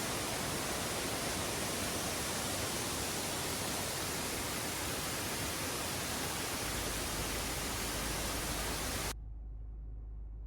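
Steady rushing roar of a 25-metre waterfall, an even noise across all pitches that cuts off suddenly about nine seconds in, leaving only a faint low hum.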